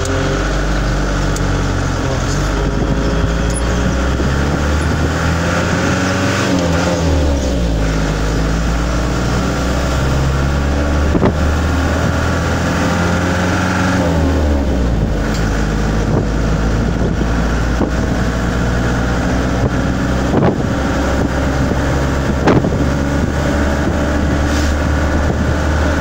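A van's engine running while driving, heard from inside the cab, its pitch slowly rising and falling as it speeds up and eases off. A few sharp knocks come through in the second half.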